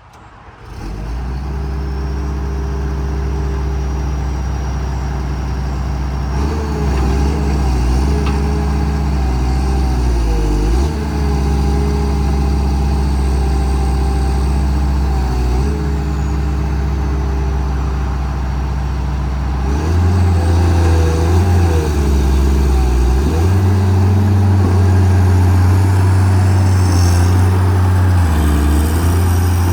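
Diesel engine of a 1995 John Deere 690E LC excavator running steadily, its pitch dipping and recovering briefly several times, then running at higher speed from about two-thirds through.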